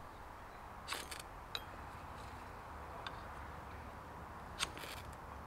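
A knife's drop point scraped down a ferro rod to throw sparks onto wood shavings, made as a few short, sharp strokes: a pair about a second in and another pair near the end.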